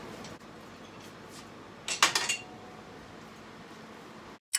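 A short cluster of metallic clinks and clanks about two seconds in, from metal bike parts and hand tools being handled while the rear shock is fitted to a dirt bike.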